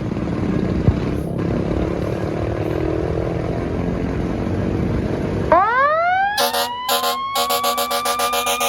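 Fire truck's engine running, then its mechanical siren winds up about five and a half seconds in, rising steadily in pitch. Over the rising siren the air horn sounds two short blasts and then a long one.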